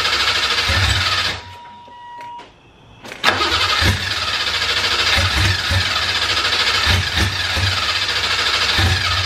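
BMW M30B35 straight-six on individual throttle bodies being cranked by its starter on a first start attempt, firing unevenly without catching. It cranks for about a second and a half, stops, then cranks again from about three seconds in and keeps going.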